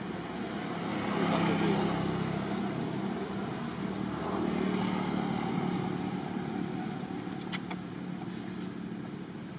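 Low engine rumble of passing road traffic, swelling twice and easing off, with a couple of short clicks about three-quarters of the way through.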